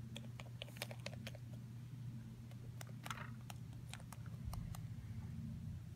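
Light, irregular clicks and taps of small plastic Littlest Pet Shop figurines being handled and set down on a wooden floor, over a low steady hum.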